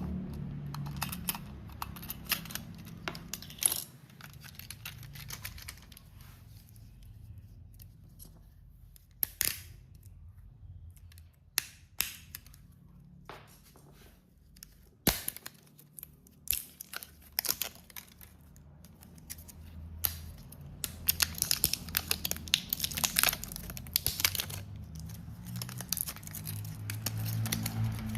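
Model train rolling along the track: a low motor hum that fades through the middle and swells again near the end, with many irregular clicks of wheels running over rail joints, growing denser as it comes closer.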